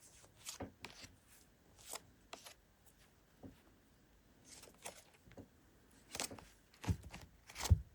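Tarot cards being shuffled and drawn: scattered faint flicks and rustles of card stock, with a couple of soft thumps near the end as cards are laid down.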